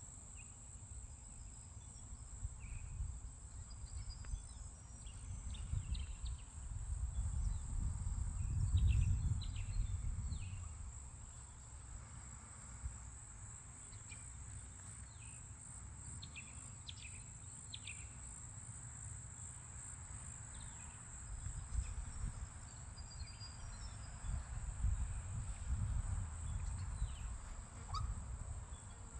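A steady high-pitched insect trill runs throughout, with scattered short bird chirps. A low rumble swells about a third of the way in and again near the end.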